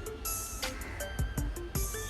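Background music: an instrumental track of short plucked or struck notes over a steady beat.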